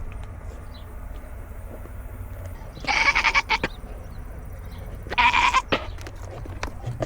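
Nigerian Dwarf goat bleating twice, two loud calls each under a second long and about two seconds apart.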